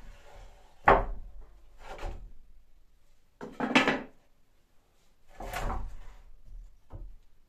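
Wooden boards knocking and scraping against each other and the overhead rack as they are pulled down by hand: a sharp knock about a second in, then several sliding, scraping bursts.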